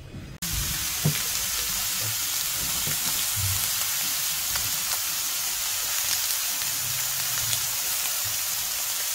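Split conger eel fillets sizzling in a hot frying pan: a steady frying hiss with scattered small pops and crackles, cutting in suddenly about half a second in.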